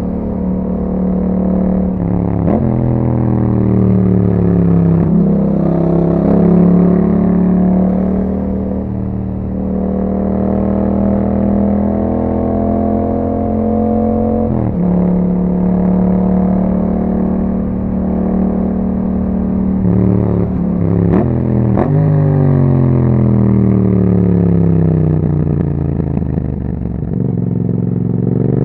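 2021 Yamaha MT-07's parallel-twin engine through an Akrapovic exhaust, under way: the pitch climbs under acceleration and drops sharply at each gear change, several times. A cluster of quick changes comes about two-thirds in, then the pitch falls steadily as the bike slows and picks up again at the very end.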